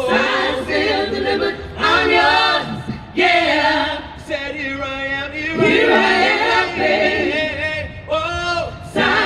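A cappella vocal group of men and women singing wordless harmonies through stage speakers, in phrases of about a second with short breaks between them.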